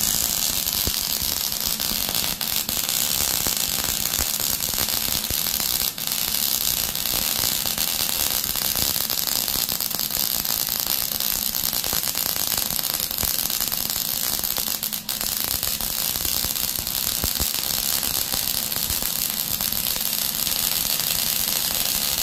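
MIG (wire-feed) welder arc crackling steadily in one long bead on steel. The arc is jumping around, which the welder puts down to a dirty contact tip.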